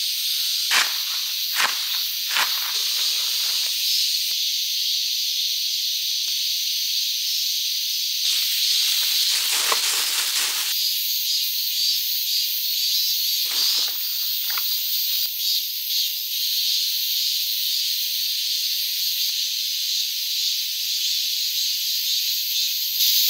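A steady, high, hissing buzz from a summer forest insect chorus. A few brief rustling swishes break in, three close together in the first couple of seconds, a longer one about eight to eleven seconds in and two more around fourteen seconds.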